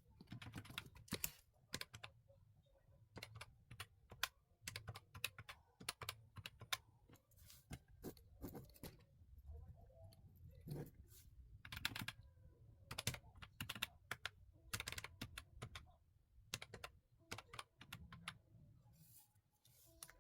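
Typing on a computer keyboard: faint, irregular runs of key clicks with short pauses between them.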